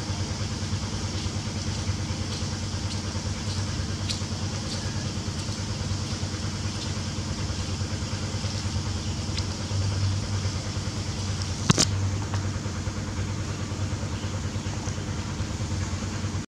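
A steady low motor hum, with one sharp click about twelve seconds in.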